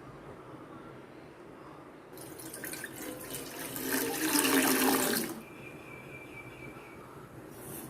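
Water pouring into a pan, a splashing rush that builds over about three seconds, is loudest just before the end, and then stops abruptly.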